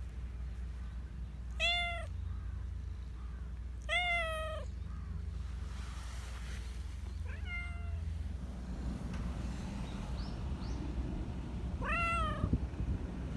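Black Persian cat meowing four times: short calls that rise and then fall in pitch, a few seconds apart, the third one fainter.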